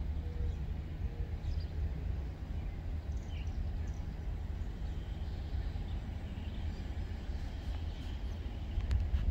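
Outdoor ambience: a steady low rumble, with birds chirping now and then and a few sharp clicks near the end.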